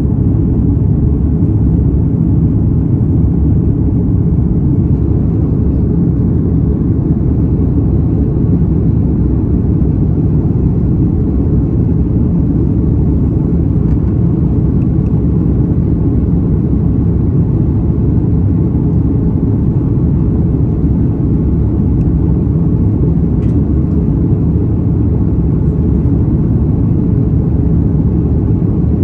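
Steady low rumble of an Airbus A330's engines and airflow, heard from inside the passenger cabin.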